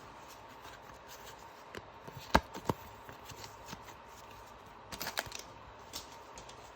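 Pokémon booster pack and trading cards being handled: a few sharp crinkling clicks, the loudest about two and a half seconds in, and a short cluster of rustles about five seconds in.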